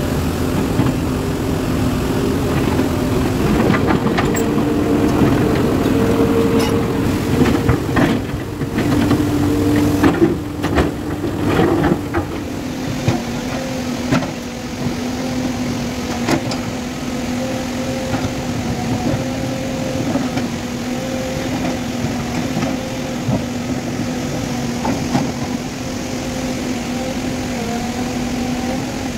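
JCB 3DX backhoe loader's diesel engine running, its pitch shifting up and down under working load during the first dozen seconds, then running steadily. Several sharp knocks and clatters come from about eight to twelve seconds in.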